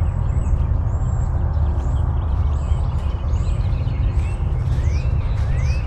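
Wind buffeting the microphone with a loud, steady low rumble, while small birds chirp faintly in the background with short rising calls.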